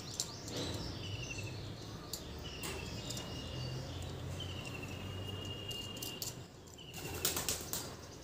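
Birds chirping in short, falling calls over a low steady hum, with a few sharp clicks about seven seconds in.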